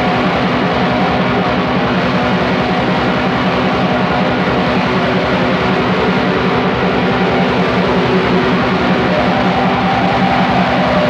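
Raw black metal: heavily distorted electric guitars over a rapid, even pulse, a dense wall of sound at a steady loudness.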